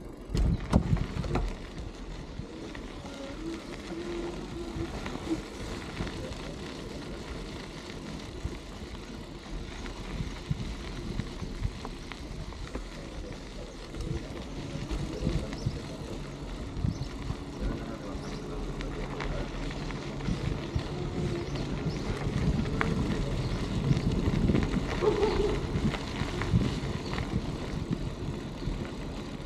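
Bicycle rolling over a sandy dirt track: a steady rumble of tyres and wind on the bike-mounted microphone, with frequent small knocks and rattles over bumps. It grows louder for a few seconds near the end.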